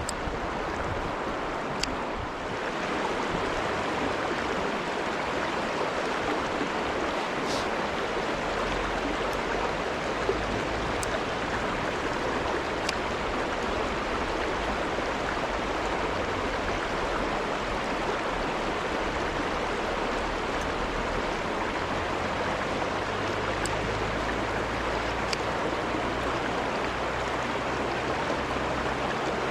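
A mountain stream rushing steadily, with a few faint clicks.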